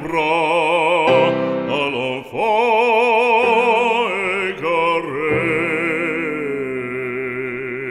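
Operatic solo singing with wide vibrato, in several sung phrases ending on one long held note.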